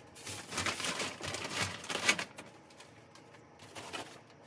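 Rustling and light clatter as things are rummaged through in plastic bags and boxes, busy for the first two seconds and then quieter.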